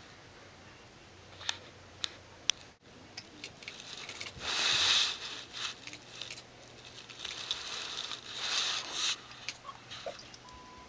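A kitten chasing a laser dot: a few sharp single clicks, then two bursts of scrabbling and rustling, about four and a half and eight and a half seconds in, as she scrambles and pounces.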